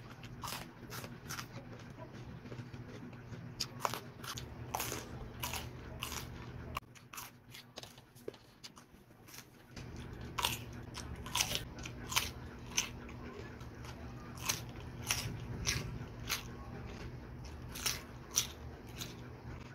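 Close-up crunching and chewing of raw green vegetables, a whole cucumber among them, being bitten into. Sharp crisp crunches come about once a second, with a quieter, sparser stretch a little before the middle.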